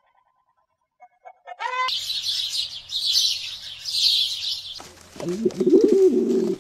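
Small birds chirping rapidly and continuously for about three seconds, then a Eurasian collared dove cooing in low, wavering notes near the end.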